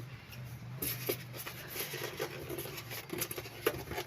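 Garment steamer packaging and parts being handled while unboxing: scattered rustles, light clicks and rubbing, with a faint steady hum under them.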